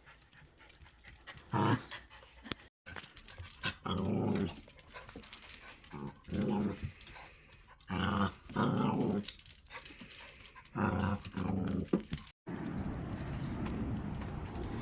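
A pet dog growling in short bouts, five or six times with pauses between. Near the end it gives way to a steady background hiss.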